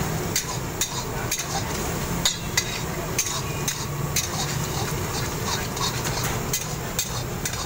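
Long steel spatula scraping and knocking against a heavy karahi (wok) as a bubbling curry is stirred over a high flame, with sharp clinks about twice a second, irregular, over the sizzle of the cooking.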